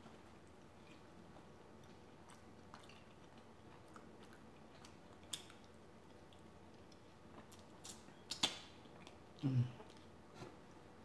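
Soft mouth sounds of a person chewing food, with scattered small clicks. A few sharp clicks come about eight seconds in, followed by a short low hum.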